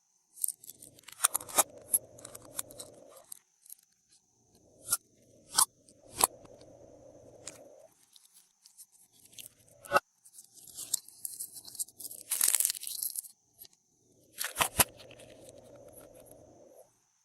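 Glossy slime being squished and worked by hand, in stretches of a couple of seconds, with sharp sticky clicks and pops between them. About ten seconds in there is a longer hissy crackle.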